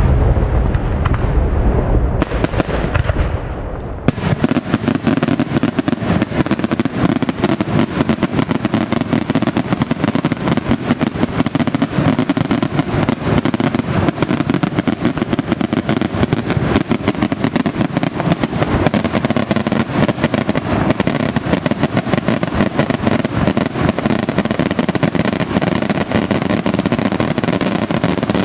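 Daytime aerial fireworks: heavy booming bursts for the first few seconds, then from about four seconds in a dense, continuous crackle of many rapid small reports.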